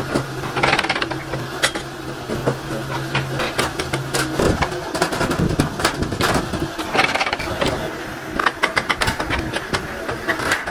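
Thin stainless sheet-metal pieces clinking and clanking as they are bent and handled on a hand-operated sheet-metal folding machine, in quick runs of light metallic clicks and knocks. A steady low hum behind it stops about four seconds in.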